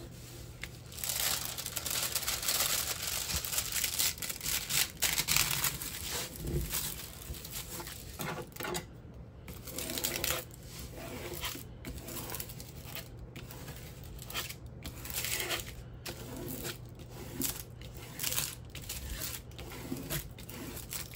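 Plastic protective film on a diamond painting canvas being smoothed flat with a spatula: the film crinkles and rustles under repeated scraping strokes. It is densest and loudest in the first few seconds, then continues as shorter, scattered strokes.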